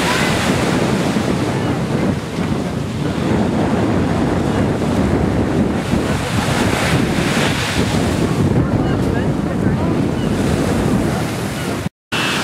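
Sea surf washing onto a sandy beach, with wind buffeting the microphone. The sound drops out briefly near the end.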